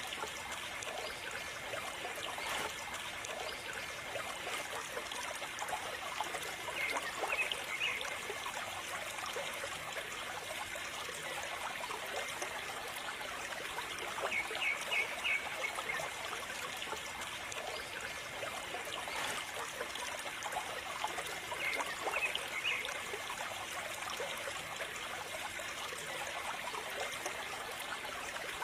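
A thin stream of water from a mini water pump trickling and splashing steadily into a shallow muddy puddle. Short clusters of three or four high chirps come back about every seven or eight seconds.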